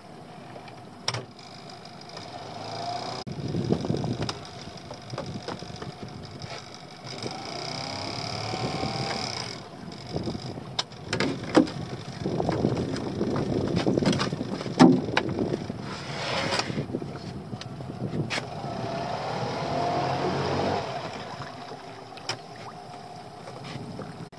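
A crab/lobster pot line being hauled up by hand over the side of a small open boat: rope, water and gear working against the hull, with irregular sharp knocks and bumps, the loudest a little past the middle.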